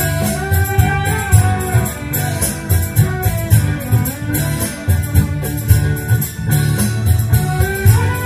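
A live band playing loud amplified music: a heavy drum and bass beat under a melody line, with guitar and violins.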